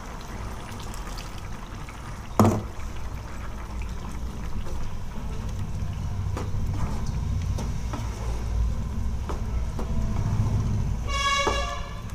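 Spatula stirring thick gravy in a nonstick pan, with scattered taps and scrapes against the pan over a steady low rumble. A sharp knock comes about two seconds in. A short horn-like toot sounds near the end.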